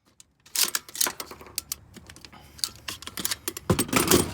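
Rapid metallic clicks and clacks of an AR-15 and a drum magazine being handled, with a louder clatter near the end.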